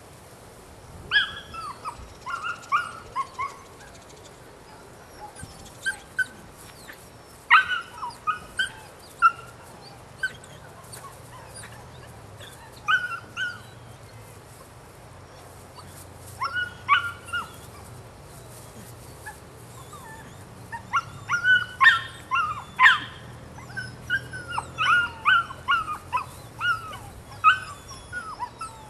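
Nine-week-old Belgian Malinois puppy yipping and barking in short clusters of high-pitched calls, with pauses between them and more of them near the end, excited during rag play.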